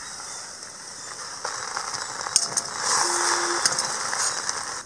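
Spatula scraping and tossing fried rice around a large wok, with sharp clinks of the spatula against the pan. It grows louder about three seconds in.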